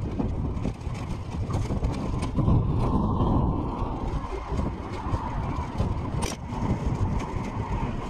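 Steady low rumble of city street traffic and road noise heard while riding an e-bike, with one sharp click about six seconds in.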